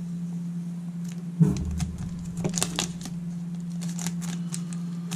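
Foil wrapper of a 1995 Leaf Limited baseball card pack crinkling as it is torn open and the cards are pulled out, a string of short sharp crackles and clicks.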